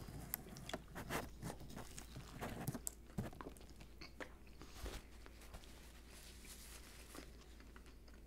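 Close-miked chewing of a mouthful of sub sandwich: crunching and small wet mouth clicks, dense for about the first three seconds, then thinning to a few scattered soft clicks.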